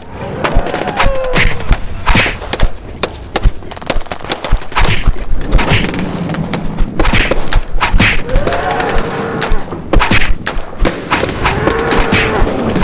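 Rapid, irregular gunfire-like shots and thuds in a mock battle, with short pitched sweeping sounds between them.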